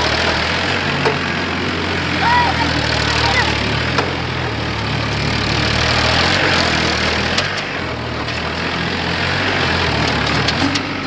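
Farmtrac tractor's diesel engine running steadily as the tractor spins in circles on loose sand.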